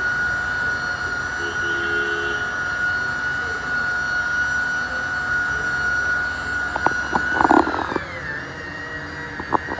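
Electric rotary polisher running with a steady high whine as its pad buffs a plastic headlight lens. There are a few sharp knocks about seven seconds in, and the motor's pitch shifts just after.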